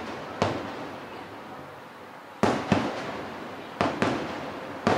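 Aerial fireworks shells bursting: five sharp booms at uneven intervals, two in quick succession near the middle, each trailing off in a rolling echo.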